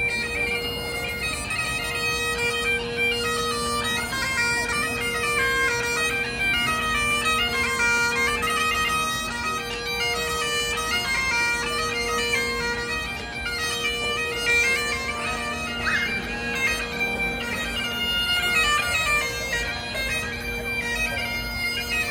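Scottish bagpipes playing a tune: a fast, ornamented chanter melody over a steady drone.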